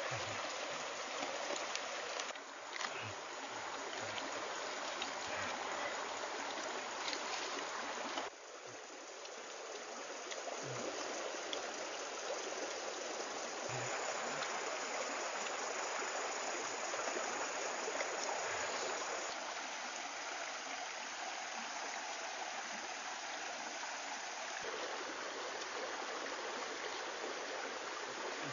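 Shallow stream running over rocks: a steady rush of water noise, its tone and level shifting abruptly a few times.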